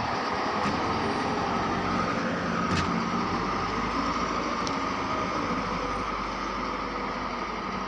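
Asphalt plant machinery running steadily: a loud, even mechanical noise with a faint hum near the bottom and a brighter band higher up.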